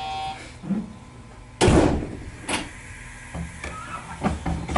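Train's sliding doors shutting with one loud thud about one and a half seconds in, just after a short buzzer tone at the start; a lighter click and a few small knocks follow, and a low steady hum sets in past halfway.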